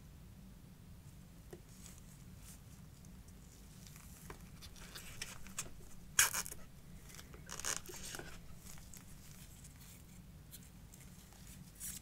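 Packaging being handled by hand during an unboxing: scattered light taps and soft rustles, with two louder, brief rustles or scrapes about six and seven and a half seconds in.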